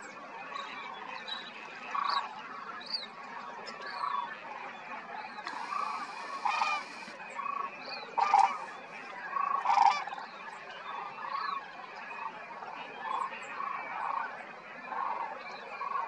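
A flock of sandhill cranes calling: many overlapping calls come one every second or so, with the two loudest a little past the middle. Short high chirps from other birds come in among them.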